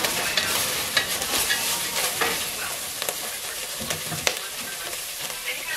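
Broccoli florets sizzling in hot oil in a nonstick pot, stirred with a wooden spatula that scrapes and knocks against the pot. The stirring stops partway through and the sizzling goes on.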